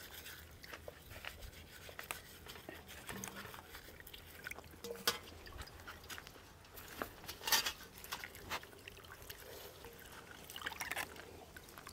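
Faint sloshing and trickling of water with scattered small splashes and knocks, as balloon frogs are handled in a bowl of water to wash off their white slime.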